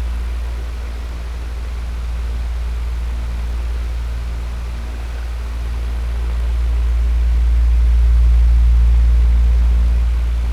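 Electric fan running steadily: a deep motor hum under an even rush of air, swelling slowly in loudness and loudest about eight seconds in.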